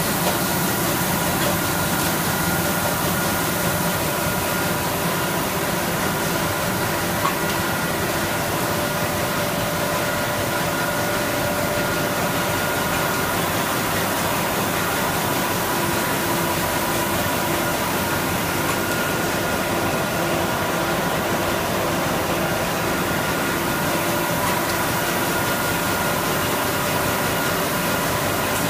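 Van Dam 520 six-colour round cup printing machine running: a steady mechanical whir with a few steady high whining tones over it.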